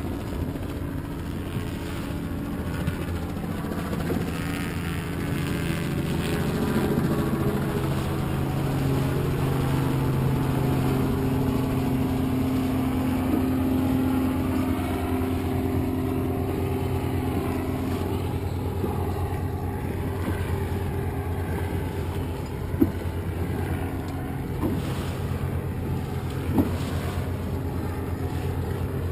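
Motorboat engine running steadily, a little louder for a stretch in the first half, with two sharp clicks near the end.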